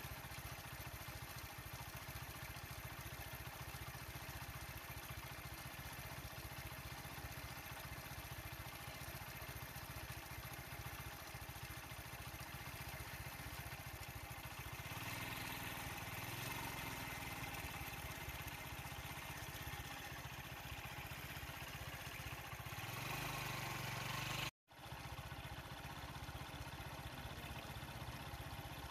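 A vehicle engine idling steadily with a fast low throb. It gets louder for a stretch from about halfway, then cuts out for an instant near the end.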